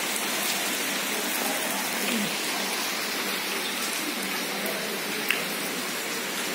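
Heavy rain falling steadily onto standing floodwater, a constant even hiss, with one brief sharp click about five seconds in.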